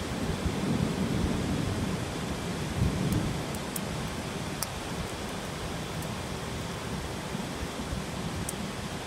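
Heavy rainstorm: a steady hiss of downpour with low rumbles of thunder, swelling about a second in and again around three seconds in.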